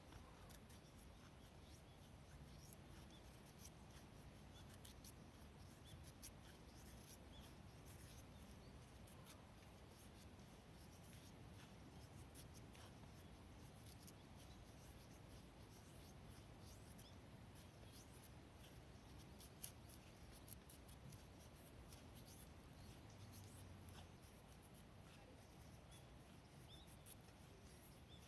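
Near silence with very faint scratching and scattered light ticks, one slightly louder tick about two-thirds of the way through.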